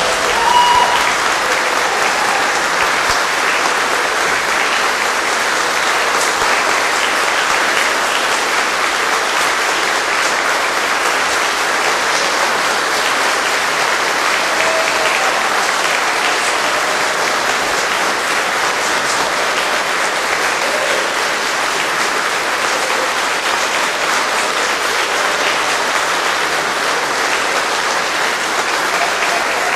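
A large audience applauding steadily in a standing ovation.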